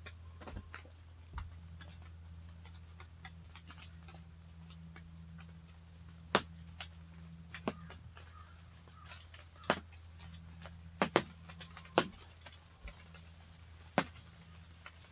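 Fog condensation dripping off leaves in the woods: scattered, irregular pats of falling drops, sounding like light rain, most of them in the second half.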